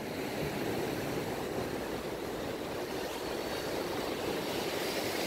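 Steady rush of ocean surf breaking and washing up the sand.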